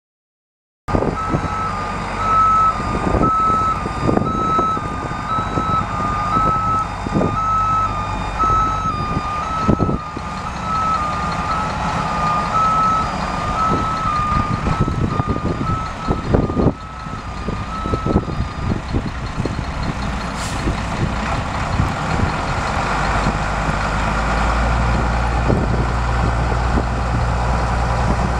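1994 International 4900 truck with an International DT466 inline-six diesel running while its reversing alarm beeps steadily as it backs up, over scattered knocks. About two-thirds of the way through the beeping stops, and the diesel grows louder as the truck pulls forward.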